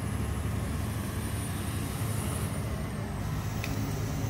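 Steady low rumble of a running motor vehicle engine, with a faint high-pitched whine slowly falling in pitch.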